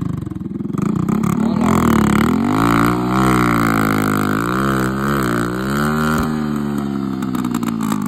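Motorcycle engine being revved, its pitch rising and falling several times; the revving stops abruptly about six seconds in.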